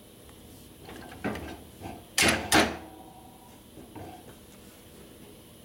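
Metal clunks as a motorcycle's coil-over rear shock absorber is worked onto its mounting studs on the frame and swing arm: a few light knocks, then two loud clanks about half a second apart a little past two seconds in.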